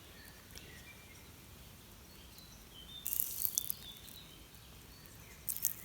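Birds chirping in short calls against outdoor background noise, with two brief hissy bursts of noise, one about three seconds in and one near the end.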